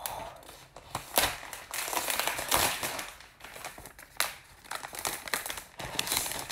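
Thin protective wrap being peeled and pulled off a new iPad, crinkling and rustling in uneven bursts with sharp crackles.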